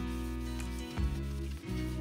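Background music: sustained instrumental chords over a steady bass, moving to a new chord about once a second.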